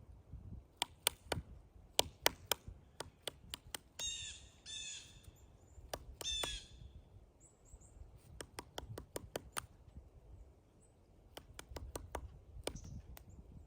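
Pileated woodpecker chiselling into a pine trunk: sharp, irregular wood knocks in spells of several strikes, not a steady drumming roll. Three short calls from a bird come between about four and six and a half seconds in.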